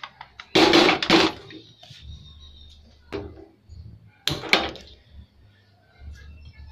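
An aluminium pressure cooker scraping and clattering as it is set onto the metal grate of a gas stove burner, about half a second in. Around four seconds later, a couple of sharp clicks from a hand-held spark gas lighter lighting the burner.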